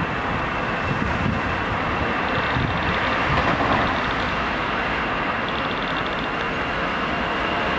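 An Airbus A340-300's four CFM56 turbofan engines at takeoff thrust during the takeoff roll. It is a steady jet roar with a low rumble and a high whine held on one pitch, swelling slightly a few seconds in.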